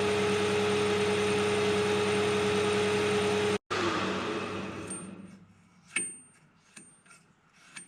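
AL960B metal lathe running steadily with a strong whine, breaking off for a moment about three and a half seconds in, then spinning down to a stop. A few light knocks follow near the end.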